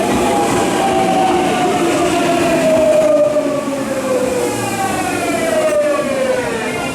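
Tokyu 9000 series train's Hitachi GTO VVVF inverter whine, a strong tone falling steadily in pitch as the train slows. About halfway in, a fainter set of higher tones joins, falling with it.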